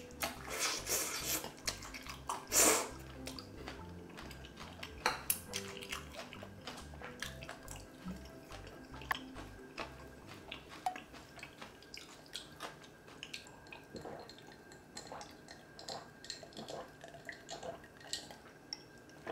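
Close-miked eating sounds: spicy instant noodles slurped from a bowl in two loud bursts, about a second in and near three seconds, then wet chewing and many small mouth clicks. A quiet music bed runs underneath.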